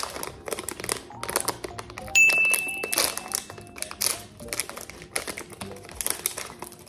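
Crinkling and tearing of a pink foil blind-box wrapper being peeled open by hand, a run of short sharp crackles, under quiet background music. About two seconds in, a loud click followed by a steady high ringing tone lasting about a second and a half.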